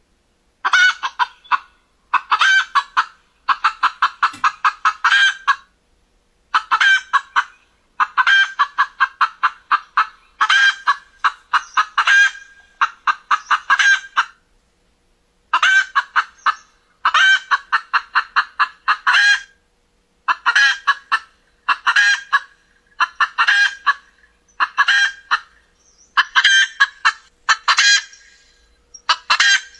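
Hen clucking in quick runs: each run is a rapid string of clucks lasting a second or two, with short pauses between runs.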